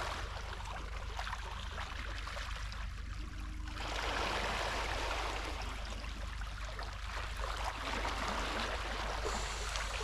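Steady rushing of fast-flowing seawater, growing fuller and louder about four seconds in.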